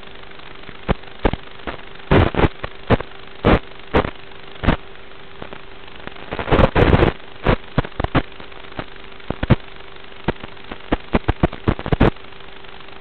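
Hiss and a steady hum from the audio channel of an analog FPV video link, broken by sharp crackles and pops of radio interference. There is a dense burst of crackling about seven seconds in and a quick run of pops near the end, as the picture breaks up.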